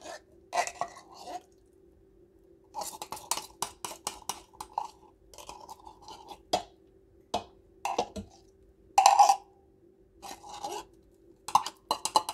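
Butter knife scraping tomato paste out of a small metal can: irregular scrapes, knocks and clinks of the knife against the can. A faint steady hum runs underneath.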